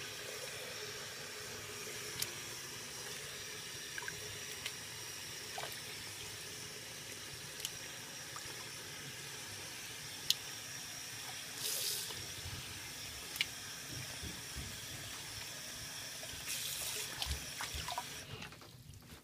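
Tap water running into a bathroom sink as it fills, with hands swishing in the water and a few small splashes and clicks. The flow stops near the end when the tap is turned off.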